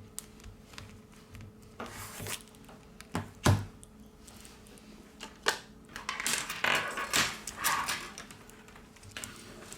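Small plastic and metal parts and hand tools being handled on a repair bench during smartphone reassembly: scattered light clicks and taps, one sharp knock about three and a half seconds in, and a stretch of scraping and rustling from about six to eight seconds in, over a faint steady hum.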